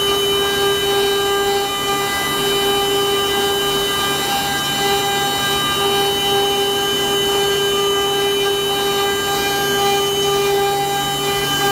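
CNC wood router spindle running at a steady high speed: a constant high-pitched whine over a hiss of cutting noise.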